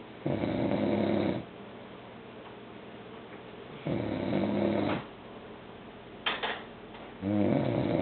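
A man snoring loudly: three rattling snores about a second long each, roughly every three and a half seconds, with a short sharp sound between the second and third.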